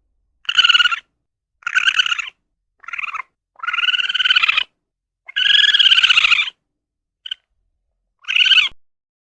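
A young farm animal calling in high-pitched, clearly pitched cries, about eight in a row, each under a second long, some rising and falling in pitch, with short gaps between them.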